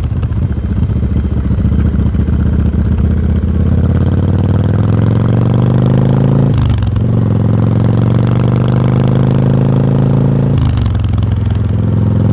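1986 Yamaha Virago V-twin exhaust while riding. It runs steady at first, then twice rises in pitch as the bike accelerates, each rise cut by a brief drop about six and ten seconds in, as at a gear change.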